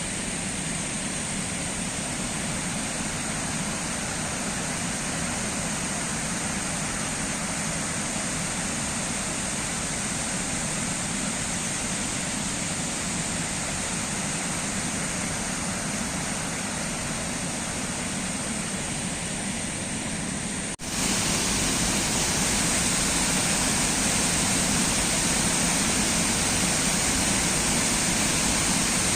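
Jägala waterfall: a steady rush of falling water. About two-thirds of the way through it breaks off for an instant and comes back louder, with more hiss.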